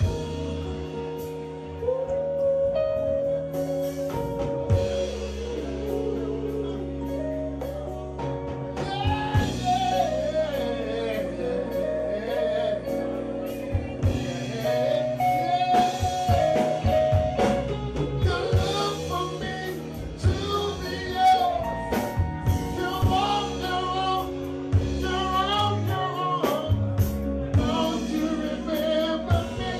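A male lead singer sings with a live band. Electric bass and a drum kit play under the vocal.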